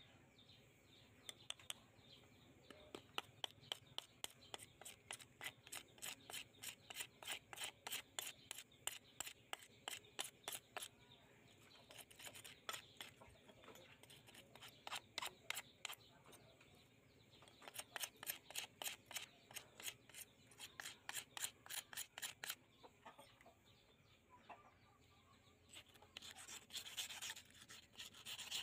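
Rusty steel knife blade being rubbed back and forth on a flat stone, a rasping scrape about three to four strokes a second, in runs with short pauses, as the rust is ground off. Near the end the strokes turn into a quicker, denser scrubbing on the soapy blade.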